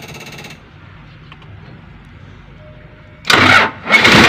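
Toyota forklift diesel engine being started: a short buzz as the key is switched on, about three seconds of quiet, then a brief burst of starter cranking, a short dip, and the engine catches and runs loudly near the end.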